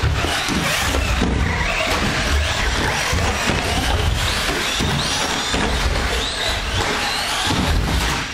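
Electric RC short-course trucks racing on a dirt track: their motors whine, rising and falling in pitch with the throttle, over a steady racket of irregular low knocks from the trucks running over the track.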